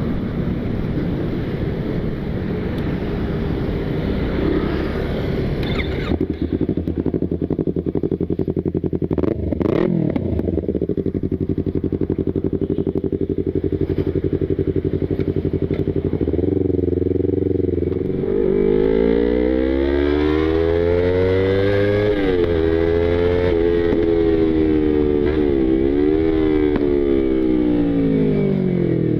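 Yamaha YZF-R25/R3 parallel-twin engine running steadily at first, with one brief rise and fall in pitch. In the last third its pitch sweeps up and down again and again, broken by short sharp dips, as the bike is revved and pulled through the gears.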